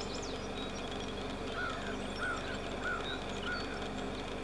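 A bird gives four short, arched calls, about two every second, starting about one and a half seconds in, with a few faint high chirps near the start. Under it runs a steady hum of the camera's own operating noise picked up by its built-in microphone.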